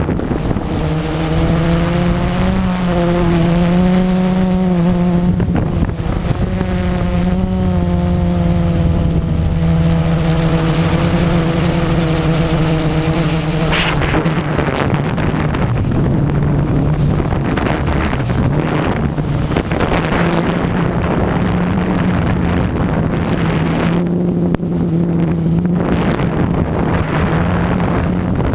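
Blade 350 QX quadcopter's electric motors and propellers buzzing steadily in flight, close up from the camera on board. The pitch wavers slightly as the throttle changes.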